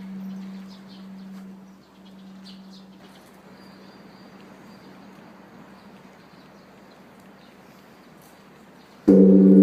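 Large Korean Buddhist temple bell (beomjong) with its low hum dying away after a strike, with faint bird chirps in the first few seconds. Near the end the bell is struck again and rings out loudly.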